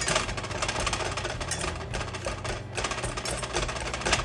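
Wire whisk mashing boiled potatoes and butter in a stainless steel saucepan: rapid, uneven scraping and clinking of the metal wires against the pan.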